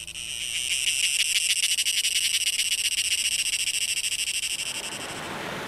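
Rainforest animal calling at night: a loud, high-pitched, rapidly pulsing trill of about ten pulses a second that fades out near the end, giving way to a steady rushing noise.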